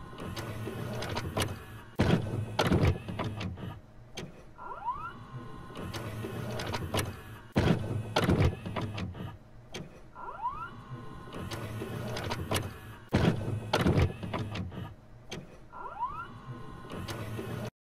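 Mechanical whirring with short rising whines and sharp clunks, a pattern that repeats about every five and a half seconds like a loop; it cuts off suddenly at the end.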